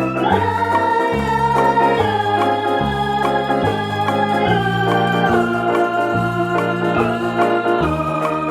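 Instrumental background music on an organ-like electronic keyboard: long held melody notes over a bass line that changes note about once a second.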